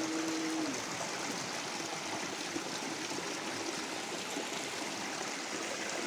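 Shallow, muddy stream rushing steadily over rocks below a small cascade.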